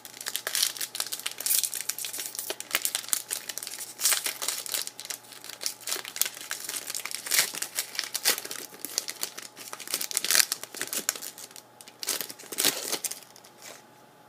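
Hockey card pack wrapper being torn open and crumpled, a dense run of crinkling and crackling that stops near the end.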